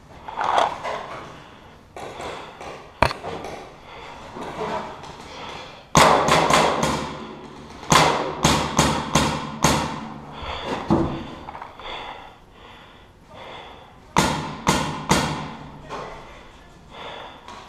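Paintball marker firing close by inside a steel shipping container: a single shot about three seconds in, then quick strings of about five, six and four shots.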